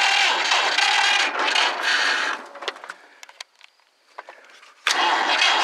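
1955 John Deere 60's two-cylinder engine being cranked by its starter, turning over strongly without catching, which the owner suspects may be flooded. The cranking stops about two and a half seconds in, a few clicks follow, and it starts cranking again near the end.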